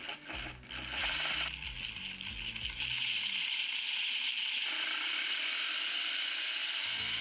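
A 3D-printed single-stage (4:1) straight-cut planetary gearbox driven by a 5010 brushless motor, spinning under throttle with a steady gear whir and rattle that gets louder about a second in and again near five seconds. The builder puts the noise down to the printed gears' high pressure angle and loose clearances, the straight-cut teeth and the lack of lubricant.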